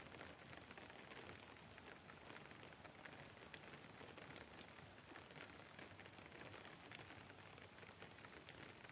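Near silence: faint, even outdoor hiss with a few scattered light ticks.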